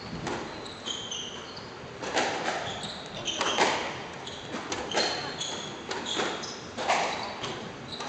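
Squash rally: the ball striking rackets and the court walls about every one to two seconds, each hit echoing in the enclosed court, with short high squeaks of shoes on the wooden floor between shots.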